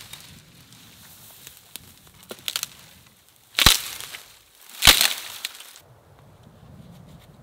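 Dry dead branches of a fallen conifer cracking as they are broken off, two loud sharp cracks about a second and a quarter apart, each trailing into a brief crackle, after a few smaller snaps.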